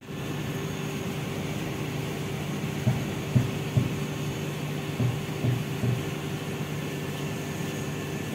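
Steady mechanical hum with a faint steady whine running under it.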